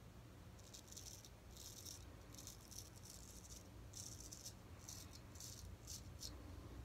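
Straight razor scraping through lathered stubble on the neck: about ten short, faint strokes in quick succession.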